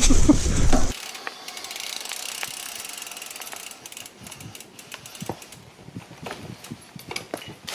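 Rumble of riding noise on a handlebar-mounted camera for about the first second, then a mountain bike's freewheel hub ratcheting as the rider coasts, with irregular clicks and knocks of the chain and tyres over rocky singletrack.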